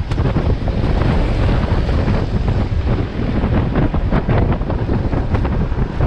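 Camouflage net stretched over a moving car's roof flapping hard in the wind: a rapid, irregular clatter over heavy wind rumble on the microphone.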